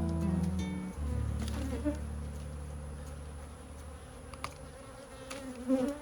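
A colony of honeybees buzzing in a steady low drone that dies away over the last couple of seconds, with a few brief knocks near the end.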